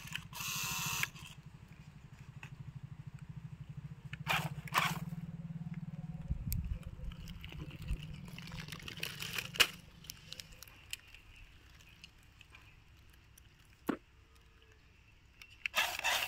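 Toy RC rock crawler's small electric motors and gearbox buzzing as it drives, with dry leaves crackling under its tyres in several short bursts. The motor buzz dies away about two-thirds of the way through.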